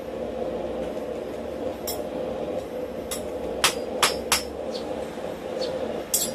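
Hand hammer striking a steel rod being bent around a steel bending pin: a handful of sharp metallic blows, most closely spaced between about three and four and a half seconds in, with a few lighter taps after. A steady hum runs underneath.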